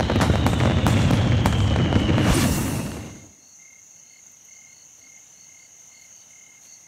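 Cartoon fireworks crackling and popping, with a slowly falling tone over them and a last loud burst about two and a half seconds in. The sound then cuts off suddenly to a quiet background with faint, evenly spaced high chirps.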